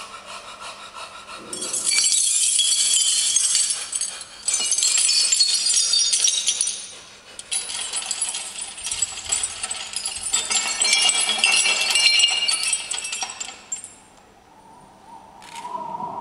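Bright jingling and rattling percussion in long surges, setting in about two seconds in, breaking off briefly around four and seven seconds in, and dying away about fourteen seconds in.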